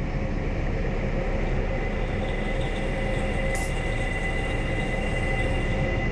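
Dark industrial ambience of a dead factory: a steady mechanical rumble with a faint thin high whine that comes in about two seconds in, and a brief hiss about halfway through.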